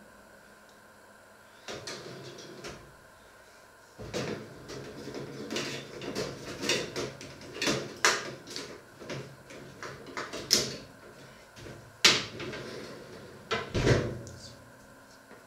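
Metal baking tray knocking and scraping against the oven's rails as it is slid into a domestic oven, a dense run of clicks and scrapes with a few sharp knocks. Near the end the oven door thumps shut.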